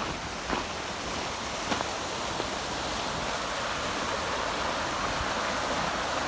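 Waterfall and rushing stream water, a steady even rush that grows slightly louder toward the end.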